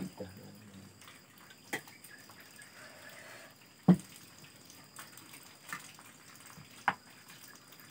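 Spoons and forks clinking and knocking against plates and plastic bowls while people eat. There are a few sharp, separate clicks a couple of seconds apart, and the loudest comes about four seconds in.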